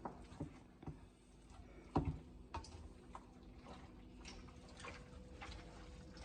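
Scattered light clicks and taps, irregularly spaced, with one sharper knock about two seconds in, over a faint steady hum.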